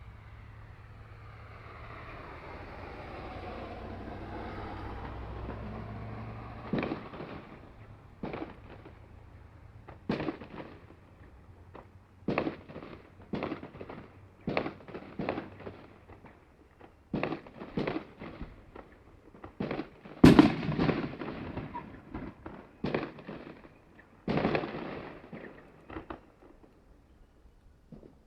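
Fireworks going off: a string of sharp, irregular bangs, each trailing an echo, the loudest about two-thirds of the way through. Before them, a rush swells and fades over the first several seconds.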